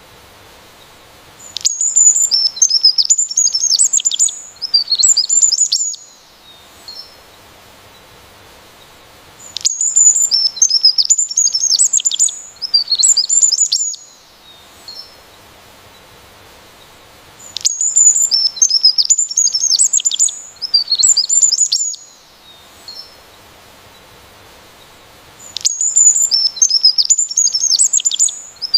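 A songbird singing a rapid, high-pitched song phrase of about four seconds, made of quick twittering notes. The same phrase comes four times at even gaps of about eight seconds, with a faint steady hiss between.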